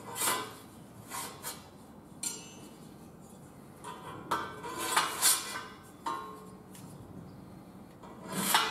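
Metal tubes being slid down onto the metal ladder sections of a tree stand, with a series of irregular clinks and clanks of metal knocking on metal.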